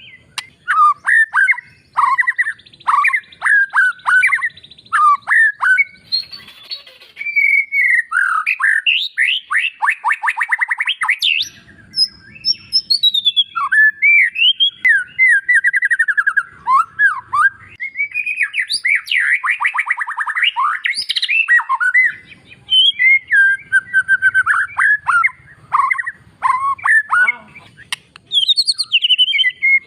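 White-rumped shama singing loudly and continuously. It pours out a varied run of whistled phrases, quick rising and falling notes and fast trills, with a short harsh rattle about six seconds in.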